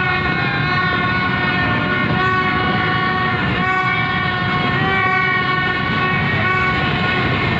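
Street celebration din: many horns sounding at once in overlapping long blasts at different pitches, over a steady low rumble of crowd and traffic.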